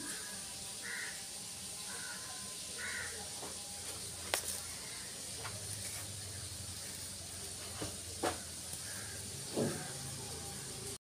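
Steady hiss with a few short, faint calls in the first three seconds and a few sharp clicks later on.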